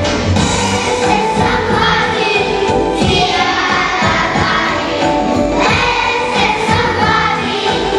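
Large choir of preschool children singing together over an instrumental accompaniment with a steady beat.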